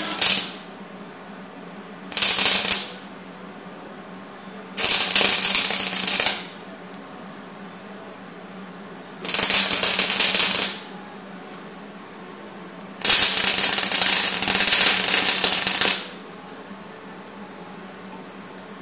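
Wire-feed (MIG) welder striking short tack welds on steel: five separate bursts of crackling arc, the last and longest about three seconds. A steady low hum runs underneath.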